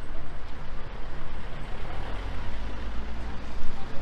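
City street traffic: a car driving past close by over a low, steady rumble of other vehicles.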